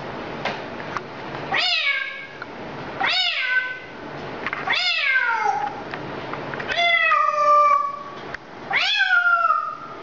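African grey parrot imitating a cat's meow, five meow calls a second or two apart, each sliding down in pitch, the fourth drawn out longest.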